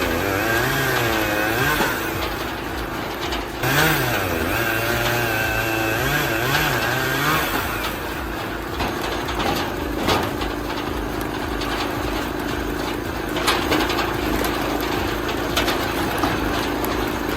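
Engine of a hydraulic log splitter running, its pitch wavering up and down for the first seven seconds or so and then holding steady, with a few sharp knocks.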